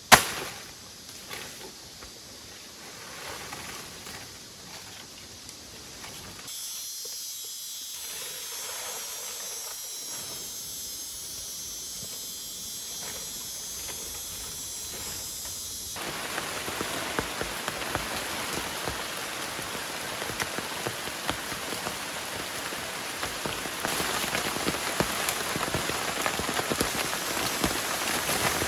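Heavy rain falling, a dense patter of drops that grows heavier and louder through the second half. A single sharp knock sounds right at the start.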